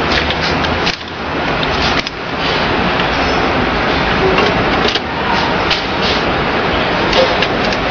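Clicks, knocks and sliding of metal and plastic parts as the slitting-blade module is pulled out of an electric business card cutter and handled, over a steady background hum.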